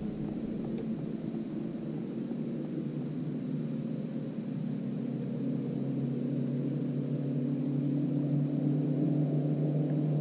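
Steady low engine drone holding a few fixed pitches and slowly growing louder, like a motor approaching, with a faint steady high whine above it.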